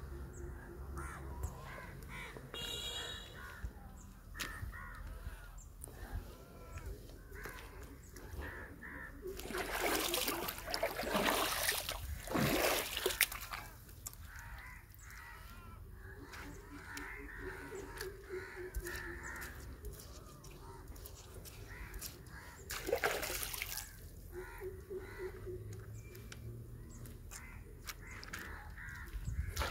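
Crows cawing on and off, with a run of splashing in the water about ten seconds in and a shorter splash later on.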